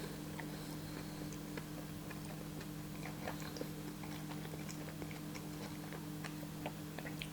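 Close-miked chewing of a grilled sandwich: scattered small crunchy, moist mouth clicks, over a steady low electrical hum.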